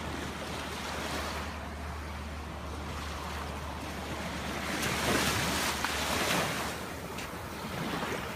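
Ocean surf breaking and washing up the beach, the wash swelling louder about five seconds in, with some wind on the microphone.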